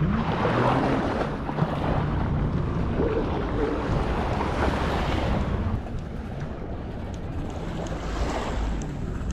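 Water washing and sloshing with wind buffeting the microphone, a continuous rushing that swells about half a second in and again around four to five seconds.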